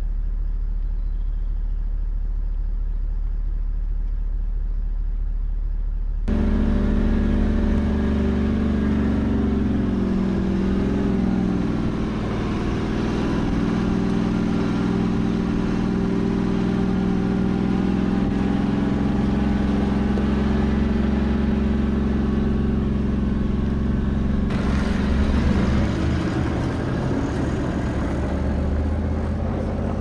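Four-wheel-drive's engine running as it drives slowly along a dirt bush track. At first it is a muffled low rumble; from about six seconds in it becomes a clearer engine drone that rises and falls a little in pitch. Near the end a hiss of tyres on gravel joins it.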